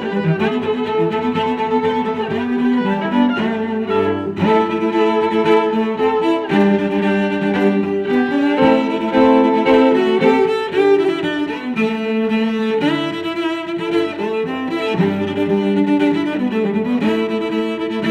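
Background music of bowed strings, with long held notes that change every second or two.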